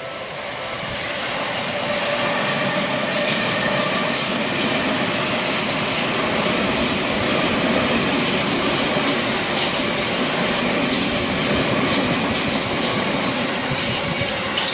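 Seibu Ikebukuro Line electric commuter train passing a level crossing, growing louder over the first two seconds, with its wheels clacking over the rail joints. The crossing's warning bell rings steadily through it.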